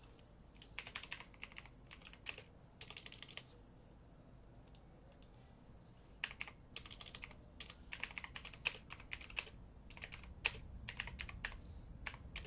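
Typing on a computer keyboard: bursts of quick key clicks, with a pause of a couple of seconds partway through.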